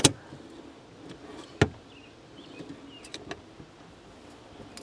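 Hand parking-brake lever of a 1996 Ford Mustang being worked: a sharp click right at the start and another about a second and a half later, then a few faint ticks.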